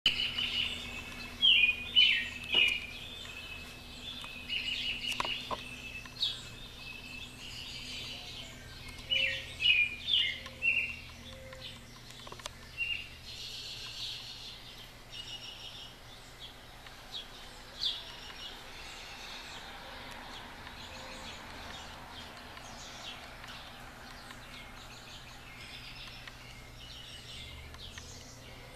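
Several songbirds singing and chirping in a dawn chorus, in quick runs of calls that are densest in the first half and sparser after.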